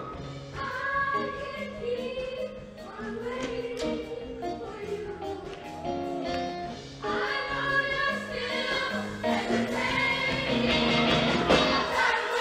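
Show choir singing held harmonies over a live band, growing louder in the second half.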